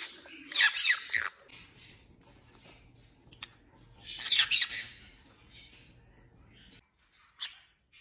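Pet conures giving short, high chirping calls of the kind read as curiosity, 'What's this?'. The calls come in two bursts, about half a second in and about four seconds in, with a few softer chirps after and one brief chirp near the end.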